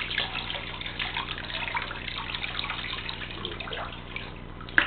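Water poured from a plastic scoop over a kitten, splashing and trickling into a plastic basin of soapy water in many small irregular splashes, with a brief sharp sound near the end.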